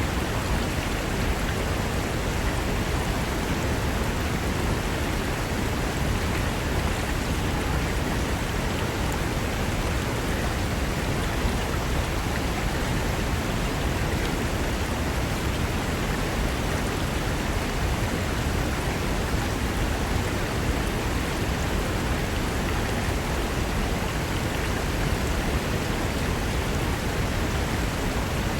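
Mountain river rushing over rocks: a steady, unbroken rush of water.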